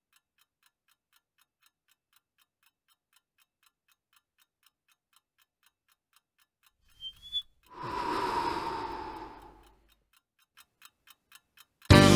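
Clock ticking quietly and steadily, about four ticks a second. About eight seconds in comes a long, breathy exhaling sound with a slightly falling tone, like a sigh.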